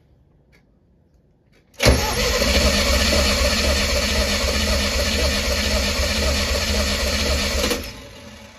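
Engine turned over on its starter for about six seconds, starting suddenly about two seconds in, then cutting off and winding down near the end. It is cranked to check for spark jumping from a screwdriver held in the spark plug wire to ground.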